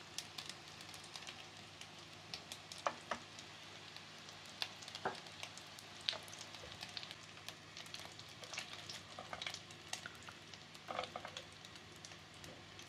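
Food frying in hot oil in a pan: a steady sizzle broken by irregular sharp crackles and pops of spattering oil.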